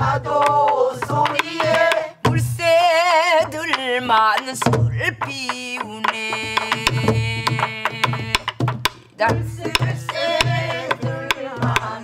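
A group singing a Namdo-style Korean new folk song with wide, wavering vibrato, accompanied by a buk barrel drum beaten in the dongsalpuri rhythm. Deep strokes on the drumhead alternate with sharp clacks of the stick on the wooden shell.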